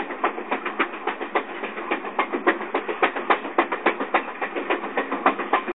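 Train wheels clacking over the rail joints and ties while running: a fast, uneven stream of sharp clicks, several a second, over a steady rushing noise.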